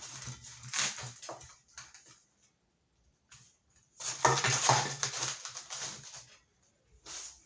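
Reciprocating saw cutting through the steel shell of an air compressor tank in short bursts, the motor running under the rasp and squeal of the blade on metal. It stops between strokes, once at the start, a longer run about four seconds in, and a brief one near the end.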